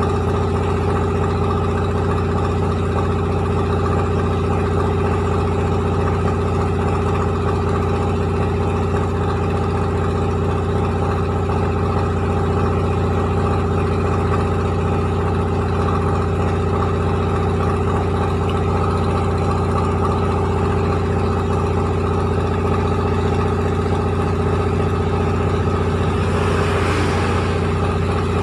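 Rice milling machine running steadily, a constant hum with several held tones, and a brief rush of hiss near the end.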